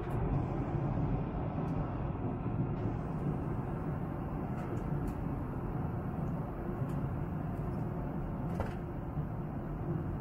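Steady, deep cabin drone of an airliner in flight: engine and rushing-air noise that holds even throughout.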